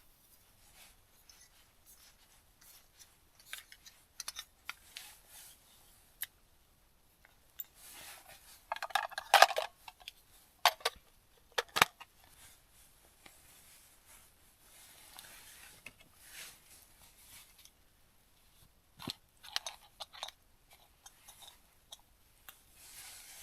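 Small handling noises at camp: scattered rustles, clicks and taps, with the busiest and loudest stretch of rustling and clacking about nine seconds in and sharp clicks about twelve and twenty seconds in.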